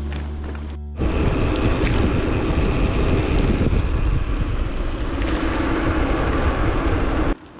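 Wind buffeting the microphone of a handlebar-mounted camera on a moving bicycle: a loud, even rumble that starts as background music fades out about a second in, and cuts off abruptly near the end.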